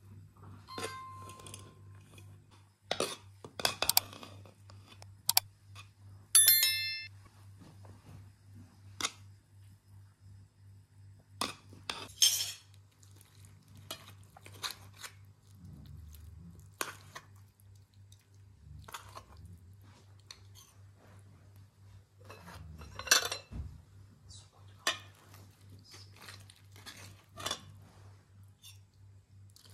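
Clatter of serving a meal: a metal skimmer tapping and scraping an aluminium pot, and china plates clinking against each other and a metal tray, in scattered sharp clinks with one bright ringing metal strike about six seconds in. A low steady hum runs underneath.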